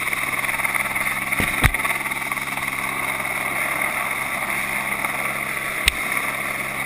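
Helicopter running overhead: a steady, even engine and rotor drone heard from the end of a long line beneath it. Two short sharp knocks cut through it, one about a second and a half in and one near the end.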